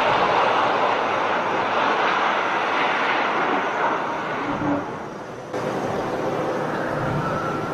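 A LOT Boeing 767 jet airliner sliding down the runway on its belly in a gear-up emergency landing, its engines running: a loud, steady rushing noise. It fades between about four and five seconds in, then jumps back up suddenly about five and a half seconds in.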